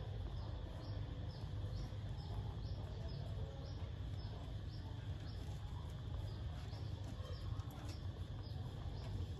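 A short, high chirp repeating evenly about twice a second, over a steady low rumble.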